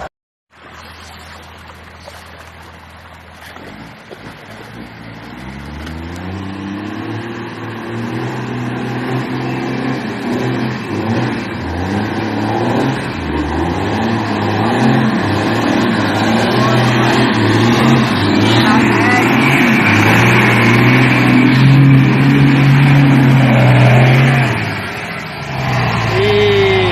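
Heavy truck engine revving hard under load, rising in pitch and growing louder over several seconds, then holding high, with a brief drop near the end before it picks up again.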